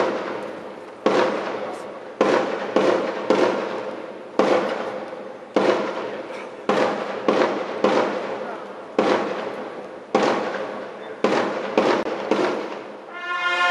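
Military drum beating the marching pace: sharp, loud strokes roughly once a second, with extra strokes in between, each ringing on in a stone courtyard. Near the end a military brass band strikes up.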